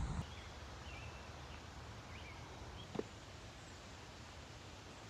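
Quiet outdoor ambience with small birds chirping a few times in the first three seconds, and a single short click about three seconds in.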